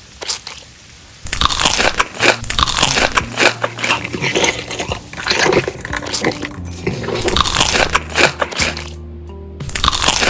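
Crunchy food being bitten and chewed: a dense run of loud crunches begins about a second in, with a short pause near the end. Background music plays underneath.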